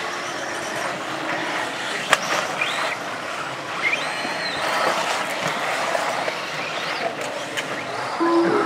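Electric 4WD off-road RC buggies racing on dirt: thin motor whines rising and falling over a steady hiss of tyres and gravel, with a sharp click about two seconds in.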